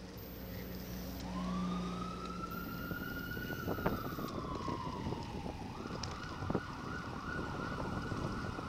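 Emergency vehicle siren: one long wail that rises, holds and slowly falls, then switches to a fast yelp about six seconds in, over steady wind and road rumble.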